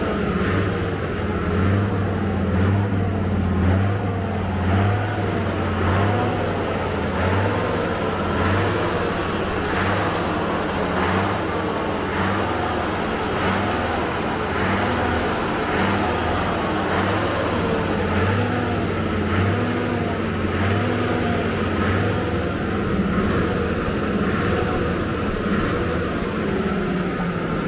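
Old bus on the move, its engine running steadily with a low hum that swells and fades in a regular pattern.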